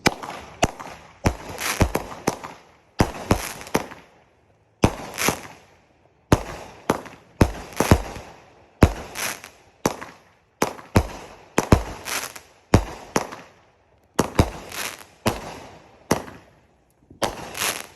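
Pro Fireworks Bermuda Triangle, a 15-shot 200-gram consumer fireworks cake, firing its shots in steady succession, about one a second: each a sharp launch bang followed by an aerial break that trails off.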